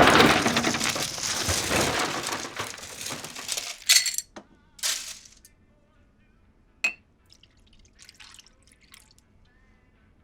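A rushing noise that fades away over about four seconds, then a few scattered sharp clinks of glassware on a bar.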